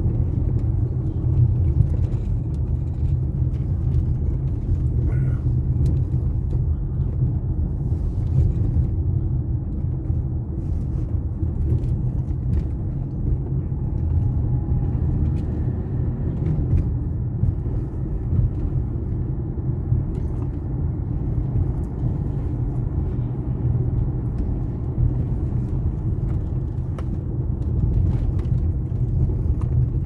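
Car driving, heard from inside the cabin: a steady low rumble of engine and road noise.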